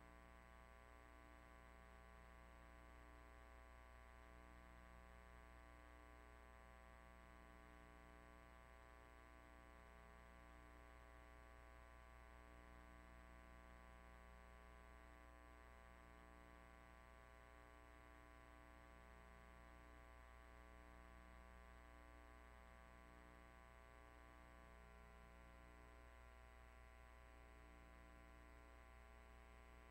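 Near silence with a faint, steady electrical hum and buzz, wavering slightly every second or two.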